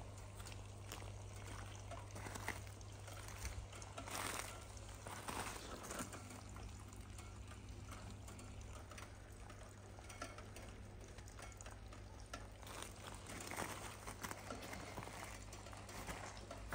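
Pond water bubbling and lapping at the surface where aeration hoses release air, over a steady low hum, with a few short knocks now and then.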